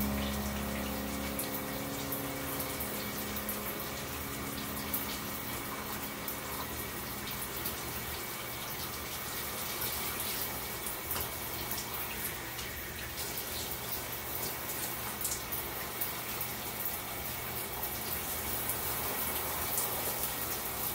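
Shower running: a steady spray of water splashing onto wet hair and the tiled stall, with small scattered drips and splashes.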